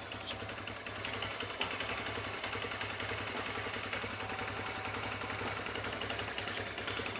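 TVS Star City Plus BS6 110 cc single-cylinder four-stroke engine idling steadily. It runs freshly rebuilt with a new timing chain, upper timing sprocket and rocker arms, and the earlier khat-khat knock from the cylinder head is gone.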